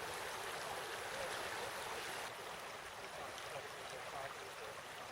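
Steady rush of flowing stream water, a touch quieter from a little over two seconds in.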